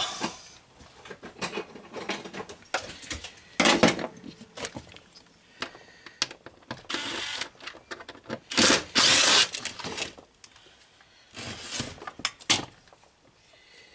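Cordless impact driver run in several short bursts, the longest and loudest lasting just over a second about two-thirds of the way through, backing out stubborn screws on a chainsaw being torn down, with small clicks of metal parts being handled between the bursts.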